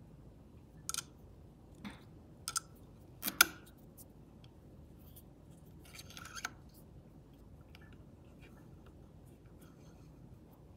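Small sharp clicks and clacks from handling a vintage Singer sewing machine while threading it, scattered over the first several seconds, the loudest about three and a half seconds in.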